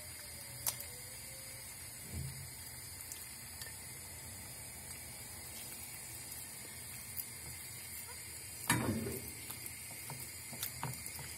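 Pepper and tomato paste going into warm oil and butter in a nonstick frying pan: a faint steady sizzle with a few light clicks and knocks. About three quarters of the way through, a silicone spatula scrapes louder against the pan.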